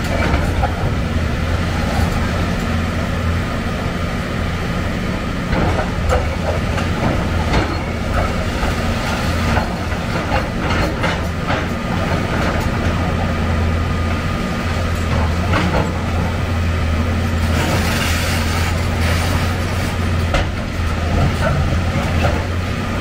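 Heavy excavator's diesel engine running steadily under load, with irregular crunching and clattering of concrete and debris as a building is demolished, the impacts thickest in the middle and again near the end.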